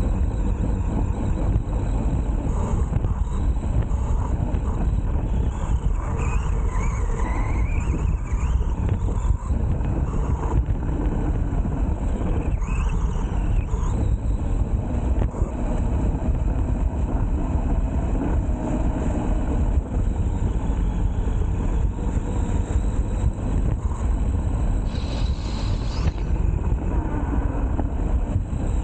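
Radio-controlled off-road truck driving across grass, heard from a camera mounted on it: a steady low rumble of the drivetrain, tyres and wind on the microphone. A brief high hiss comes in near the end.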